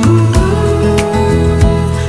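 Background music: an instrumental passage of a pop song with guitar, bass and a steady beat, between sung lines.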